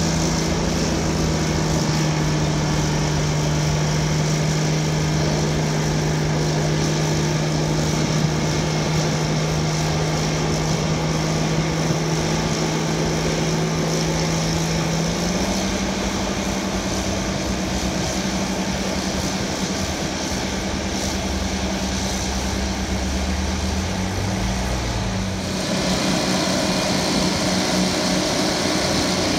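Euclid TC-12 crawler dozer's twin Detroit Diesel 6-71 two-stroke engines running hard as the dozer pushes dirt with its blade. The steady engine note steps up in pitch about halfway through.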